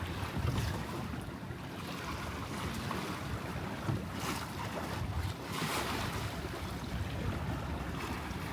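Wind buffeting the microphone and water rushing along the hull of a small sailboat under way, with a couple of louder washes of water about four and six seconds in.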